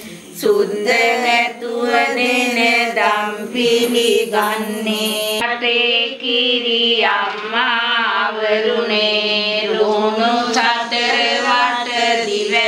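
Sinhala devotional song to the goddess Pattini: a melodic chant-like vocal line sung over a steady low drone.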